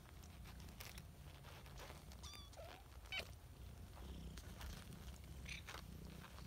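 Mother cat purring faintly and steadily while nursing her newborn kittens, with a couple of short high squeaks about two and three seconds in.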